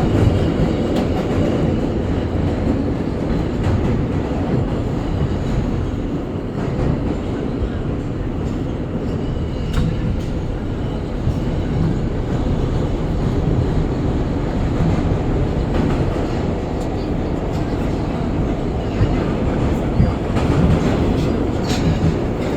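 Inside an R160 subway car running through the tunnel: a steady rumble of wheels on rail and running gear, with a few sharp clicks from the track, and no air-conditioning fans running.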